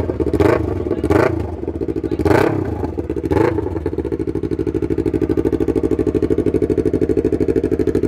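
Yamaha R3's parallel-twin engine through an M4 aftermarket exhaust, idling with a steady throb and blipped four quick times in the first half, then settling back to an even idle.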